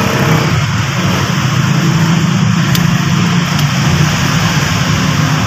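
An engine idling steadily with a low, even hum. Two faint light clicks come about three seconds in.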